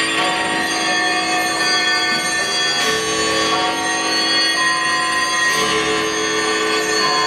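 Many clocks chiming and ringing at once over held synthesizer chords, played through the concert PA.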